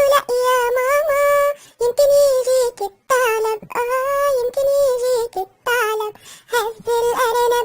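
A high-pitched cartoon character's voice singing an Arabic children's song about a rabbit and a fox, in short held phrases with brief breaks between them and no instruments.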